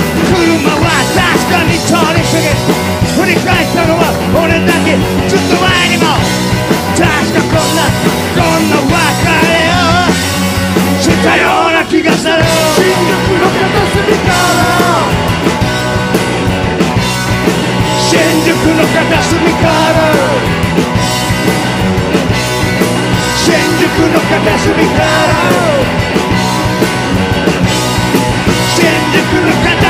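Rock music: a band playing with a male voice singing, with a brief break in the low end about twelve seconds in.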